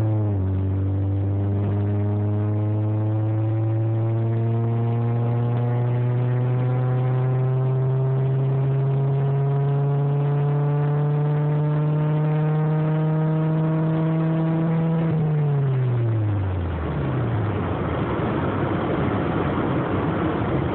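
Honda Prelude's four-cylinder engine pulling hard under acceleration inside the cabin, its note climbing slowly and steadily in pitch for about fifteen seconds. The revs then drop quickly, leaving a steady road and wind noise.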